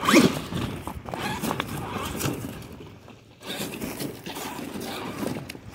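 Traxxas X-Maxx 8S electric RC truck crawling slowly over rocks: its brushless motor and drivetrain whir in uneven stop-and-go spurts while the big tyres grind and scrape over the stones, with a brief lull about three seconds in.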